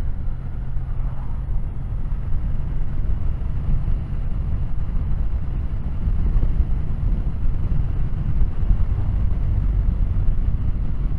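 Kawasaki W800's air-cooled parallel-twin engine running steadily while riding, a low rumble mixed with wind and road noise.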